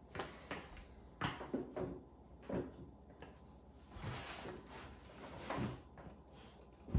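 Handling noises: a few light knocks and scuffs as a pair of hard-soled leather dress shoes is set down on a wooden tabletop, then a longer rustle of cardboard as a hand goes into the shipping box.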